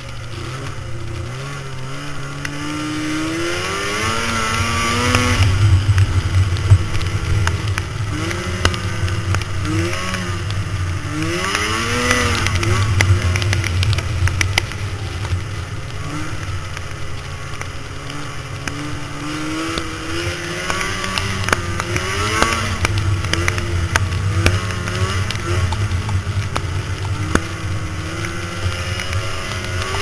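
Snowmobile engine under way, its pitch rising and falling several times as the throttle is worked, with scattered small ticks of snow thrown up against the machine.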